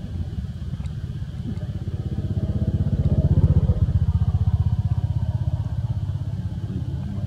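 A motor engine's rapid, even low throb, swelling to a peak about halfway through and then fading.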